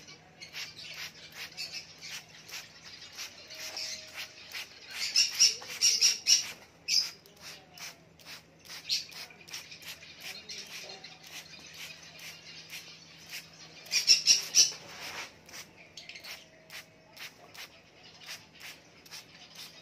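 A hand trigger spray bottle squeezed over and over, each pump a short hissing puff of mist. Caged birds squawk and chirp behind it, loudest in two spells about five and fourteen seconds in.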